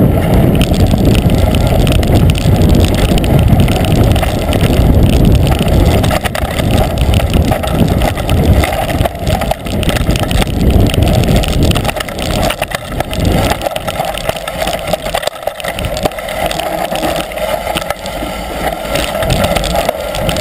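Mountain bike running fast down a rough dirt singletrack: loud wind buffeting on the point-of-view camera's microphone, mixed with tyre noise and frequent knocks from the bumpy trail. The heavy low rumble eases about two-thirds of the way through.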